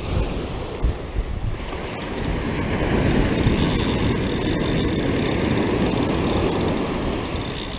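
Ocean surf washing up a sandy beach, the rush of water growing louder about three seconds in as a wave sweeps in, with wind rumbling on the microphone.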